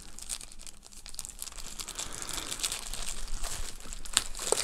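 Clear plastic bag crinkling and rustling as hands unwrap a cat litter mat, growing louder toward the end with a few sharp crackles about four seconds in.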